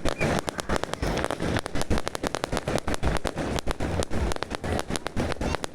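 Fireworks going off in a rapid, irregular string of sharp bangs and crackles.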